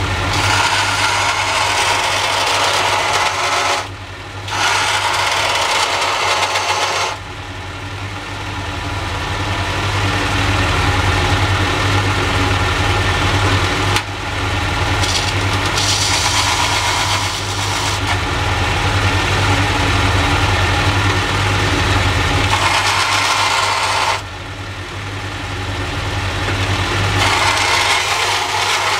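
Makita portable bandsaw running with a steady motor hum, its blade cutting a steel knife blank in stretches of a few seconds, with short breaks between cuts where only the motor is heard.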